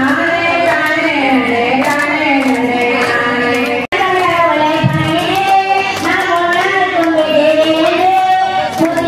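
Women's and girls' voices singing a devotional song, the melody continuous; the sound cuts out for an instant about four seconds in.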